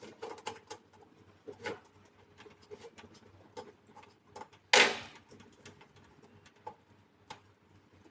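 Scattered small clicks and taps of hands and tools working cables into the terminals of a DC breaker in a PV combiner box, with one louder knock about five seconds in.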